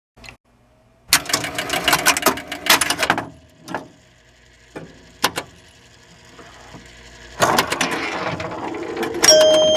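Two bursts of rapid mechanical clicking and rattling, with a few single clicks between them. Near the end, steady electronic tones begin.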